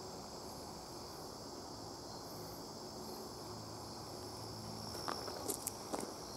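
Steady, high-pitched chorus of insects trilling in the woods. A few footsteps crunch on the leaf-littered forest floor starting about five seconds in.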